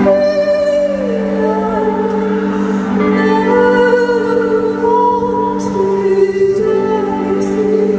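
Live rock-band performance: a female lead singer holds long, wavering notes over sustained chords from the band, with no drums.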